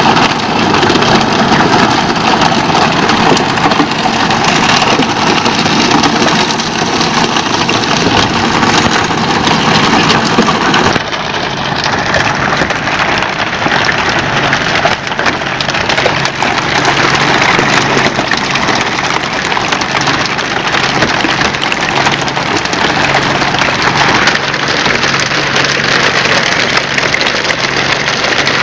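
Pole-and-line fishing boat's engine running under a loud, steady hiss of splashing spray water, with scattered wooden knocks as hooked fish are flipped onto the deck. The sound changes abruptly about eleven seconds in, after which the engine hum is plainer.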